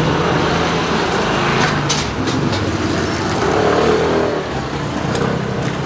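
Steady street noise with road traffic, and a few sharp clicks about two seconds in and again near the end.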